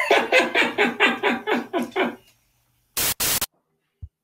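A person laughing in a run of even, quickly repeated pulses for about two seconds. About three seconds in come two short bursts of hissing static, then a brief low thump near the end.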